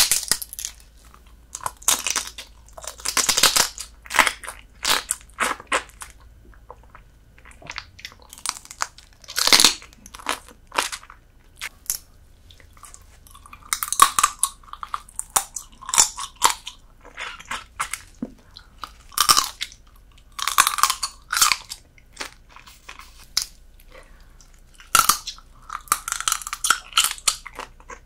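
Close-miked eating of soy-sauce-marinated horsehair crab: its thin shell crunching and cracking between the teeth, with chewing, in irregular bursts.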